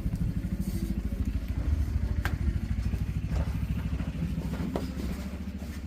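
An engine running steadily with an even low throb, with a couple of sharp clicks or knocks about two seconds in and again near the end.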